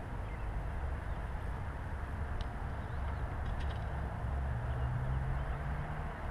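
Steady outdoor noise with a low rumble. A low hum comes in about four and a half seconds in. A few faint chirps and light clicks are heard between two and four seconds in.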